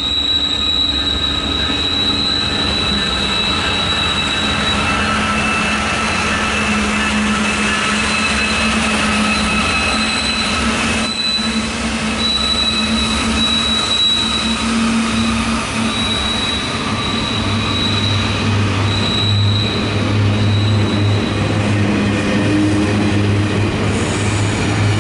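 Double-stack intermodal freight train rolling past, its wheels squealing in steady high-pitched tones over the rumble of the cars. A low hum grows in during the second half.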